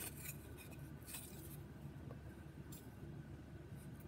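Faint scraping and rubbing of thin plywood test pieces handled in the hands, a few short scratchy sounds over a low steady hum.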